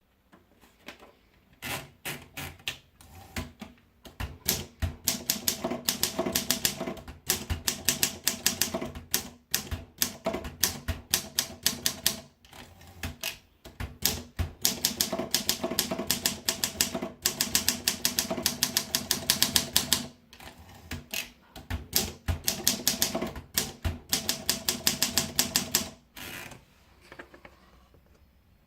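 Olympia SM3 Deluxe manual portable typewriter being typed on: rapid runs of sharp type-bar strikes, several a second, in bursts with short pauses between. The typing stops a couple of seconds before the end.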